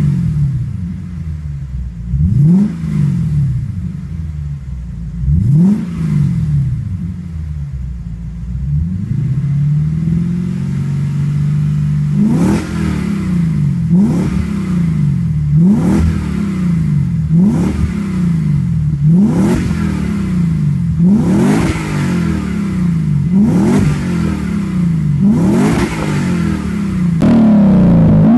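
Lexus IS-F's V8 free-revving through its aftermarket exhaust while the car stands still: a few spaced blips, then a longer rev held for a couple of seconds, then a rapid run of throttle blips about every second and a half, each rising and falling in pitch. Near the end it changes to a louder, steadier engine sound.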